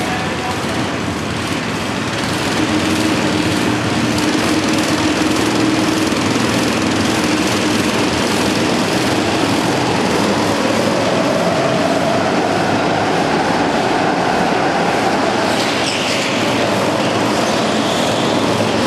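Several go-kart engines running together as karts lap the track, a continuous din whose engine notes rise and fall as the karts pass and accelerate.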